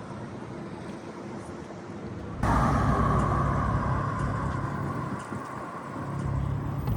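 Steady engine and traffic noise, jumping suddenly louder about two and a half seconds in, with a steady low hum and a higher droning tone after the jump.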